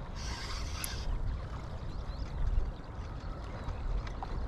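River current rushing with a steady low rumble, and a brief hiss near the start.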